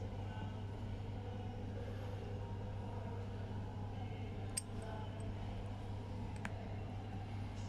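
Stainless steel case back being fitted onto a Casio Edifice watch case: two small metallic clicks about two seconds apart, over a steady low background hum.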